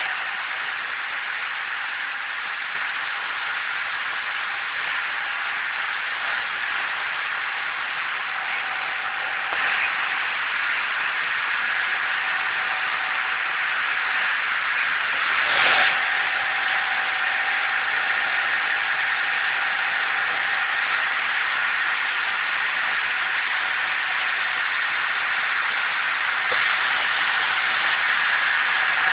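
16-spindle B-type braiding machine running, a steady even mechanical noise with a faint steady whine over it and a single knock about halfway through.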